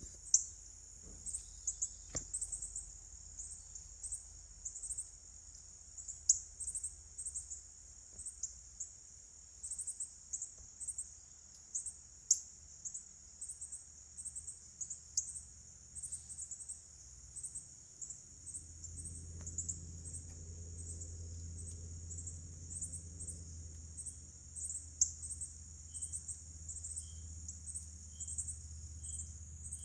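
Chorus of crickets or similar insects: a steady high-pitched buzz with many quick repeated chirps. From about two-thirds of the way in, a low steady hum joins, and near the end faint high pips sound about once a second.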